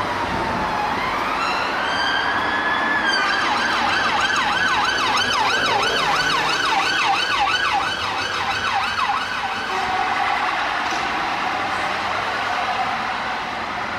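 UK police car siren sounding over traffic, switching from a slow wail to a fast yelp about three seconds in. The yelp stops about ten seconds in, leaving a fainter tone.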